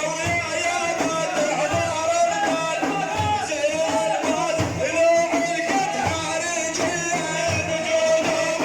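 Arabic song: a sung, ornamented melody over an instrumental backing, with low drum beats underneath.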